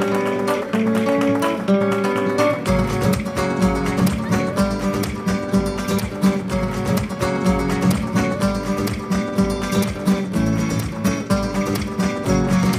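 Spanish-style acoustic guitar music with fast plucked and strummed notes; a deep pulsing beat comes in after about three seconds.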